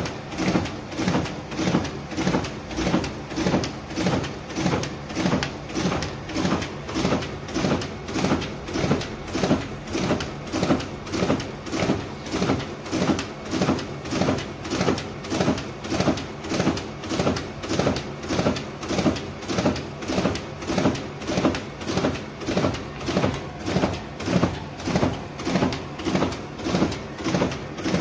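Riso CV3230 digital duplicator printing sheet after sheet, with a regular mechanical pulse from the drum and paper feed for each sheet, about five every three seconds.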